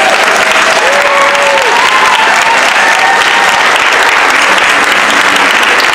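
Audience applauding steadily and loudly, with a few voices calling out over the clapping.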